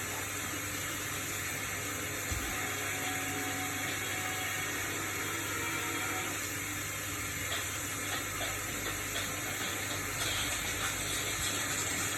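Hotpoint-Ariston RSG 825 J washing machine running, with a steady hiss of water.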